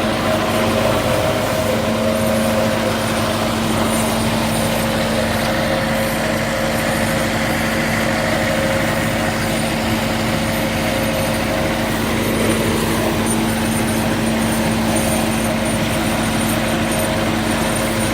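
Tractor engine running steadily under load, powering a feed mixer wagon, with a constant hum.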